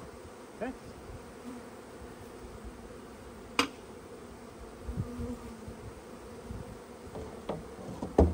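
Honeybees buzzing steadily as they fly around newly installed package hives, stirred up from being shaken into the package. A sharp knock sounds about three and a half seconds in, and a louder one near the end.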